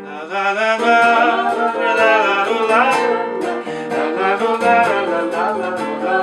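Acoustic guitar strumming a bard song, with a voice singing the melody without words between verses.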